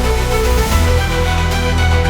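Electronic soundtrack music with sustained synth notes over a heavy, steady bass.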